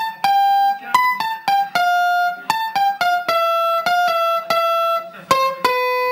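Electronic keyboard playing a bright, plucked-sounding single-note melody through a homemade portable PA speaker box. About a dozen quick notes, slowing to longer held lower notes near the end.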